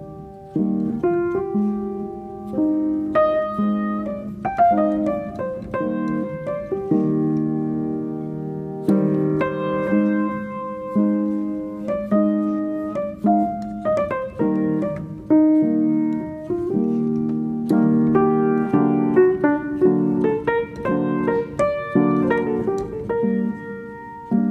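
Background piano music: a melody of single struck notes and chords, each fading after it is played.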